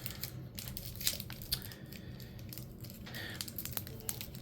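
Crinkling of a foil booster pack wrapper and trading cards being handled, with scattered soft clicks and rustles.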